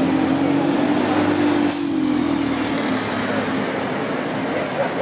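A heavy street vehicle running close by: a steady low hum that fades after about three seconds, with a short hiss about two seconds in.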